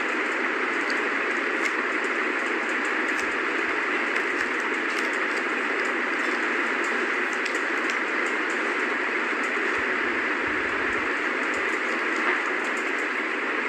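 Steady rushing noise, with a few faint light clicks.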